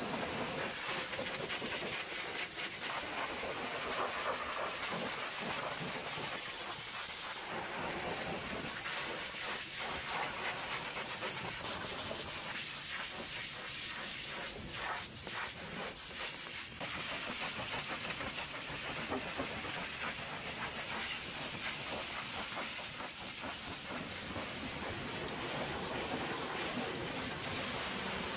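High-pressure water jet from a pressure-washer lance spraying against a truck's chassis, wheels and fuel tank: a steady, dense hiss that shifts a little as the jet moves over different surfaces.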